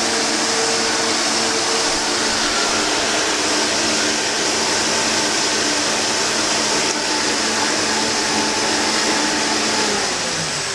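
Turnigy 2218 2100KV brushless outrunner motor driving a scratch-built water jet pump under heavy load, drawing about 450 W. It gives a steady, loud whine over a rushing hiss, and the whine falls in pitch near the end as the motor winds down.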